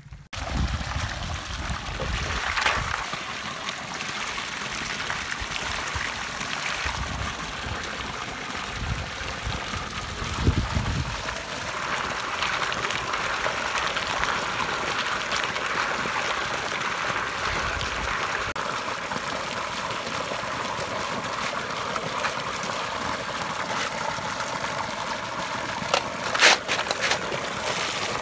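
Water running steadily into a steel bowl of freshly caught snails as they are rinsed and stirred by hand, with overflow splashing onto the ground. A couple of sharp clicks sound about two seconds before the end.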